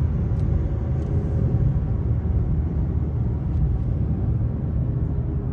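Steady road and engine noise inside a moving car's cabin at highway speed: a low, even rumble with no sudden events.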